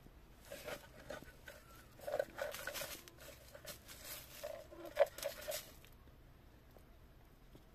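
Hands rustling through dry leaves and soil and handling a small wooden box: irregular scraping and light knocks, the sharpest about five seconds in.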